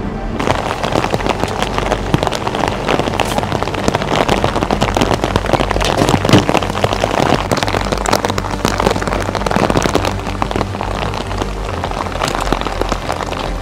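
Heavy rain falling on a truck camper's bodywork and the wet ground, a dense patter of close drop hits with one louder hit about six seconds in. A steady low engine hum runs underneath.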